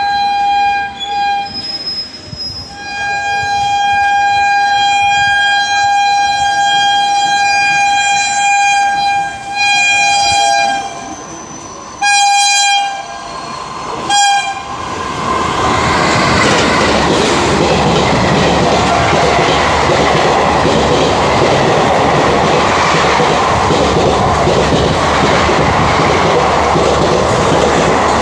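Electric locomotive horn of an approaching WAP-4 sounding about six blasts, one held for some six seconds, over the first half. After that the train's ICF coaches run past at speed, a loud steady rush of wheels on the track.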